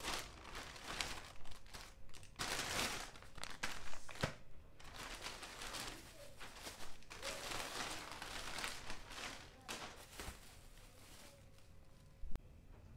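Thin plastic carrier bags rustling and crinkling as groceries are pulled out of them, in two long stretches, with a sharp knock about four seconds in and another near the end.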